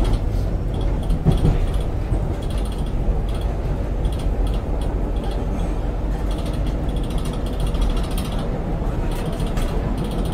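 Tyne and Wear Metrocar running along the track, heard from inside the front of the car: a steady low rumble of wheels and running gear with scattered clicks and knocks.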